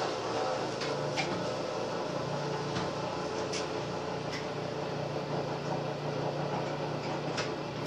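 Electric grinder motor running steadily with a low hum while grinding carrots into pulp for pressing, with a few light knocks as the carrots are fed in.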